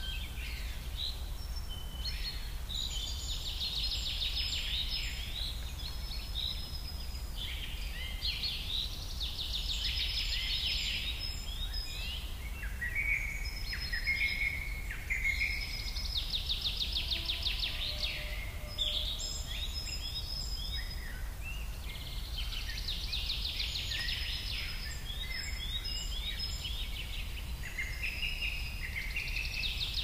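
Birds singing: bursts of fast trilled chirps, one every five to seven seconds, over a faint steady low rumble.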